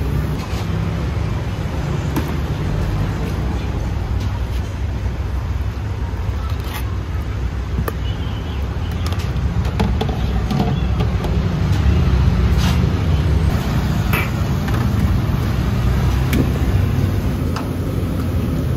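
Gas wok burner running with a steady low rumble under a steel wok of boiling liquid. Now and then metal ladles clink sharply against the wok.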